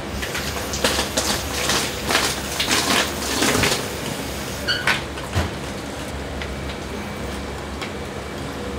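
A rubber-gloved hand working the wet body of a monkfish hanging from a hook: a quick run of wet slaps and rustles for about the first four seconds, then a short squeak and a thump, over a steady low kitchen hum.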